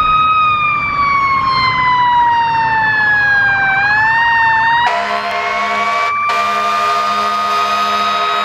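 Fire engine siren wailing, its pitch falling slowly for about four seconds and then rising again. From about five seconds in, a steady lower horn tone sounds under it.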